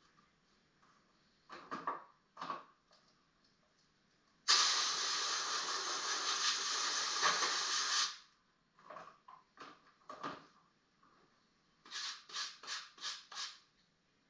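Hand sanding on old wooden mantle trim: a few scratchy strokes, then a loud steady hiss that starts suddenly and cuts off after about three and a half seconds. More strokes follow, ending in a quick run of about four strokes a second.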